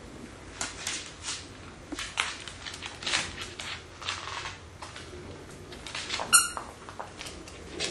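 Crinkly rustling of tissue paper as a dog noses through it, then a plush dog toy squeaks once, sharply, about six seconds in.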